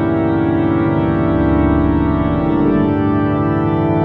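Background music: sustained organ chords, the chord changing about two and a half seconds in.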